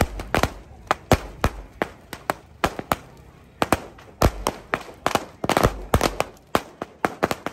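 Firecrackers going off in an irregular run of sharp bangs, several a second, some louder than others.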